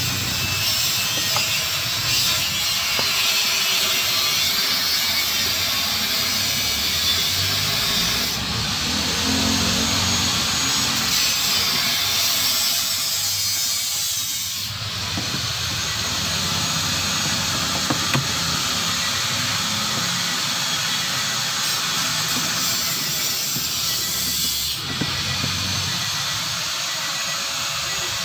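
Steady hiss of a sprayer cleaning a car air-conditioning evaporator, with a motor running underneath; the hiss changes abruptly about a third of the way in, near halfway, and again near the end.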